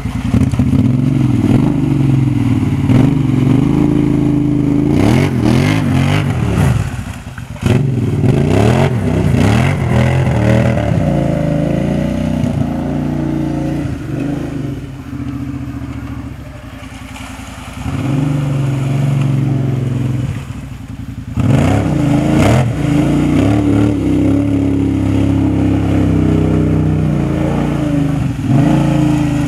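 Kawasaki Brute Force 750 quad's V-twin engine with an aftermarket exhaust, revving up and down over and over as the quad works through mud, with a quieter stretch in the middle.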